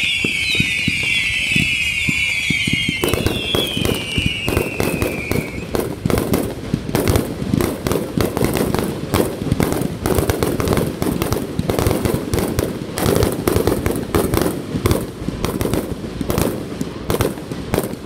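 Aerial fireworks. Over the first few seconds several whistling shells shriek, falling in pitch. About three seconds in, a dense, continuous crackle of many small bangs takes over and runs on as the bursts go off.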